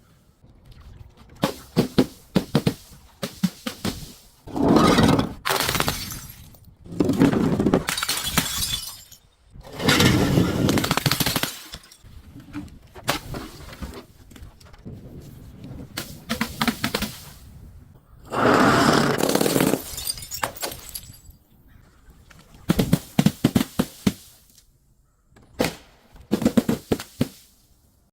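Objects being crushed and breaking, glass bottles among them: about four longer crunching, cracking bursts of a second or two each, with shorter clusters of sharp cracks between.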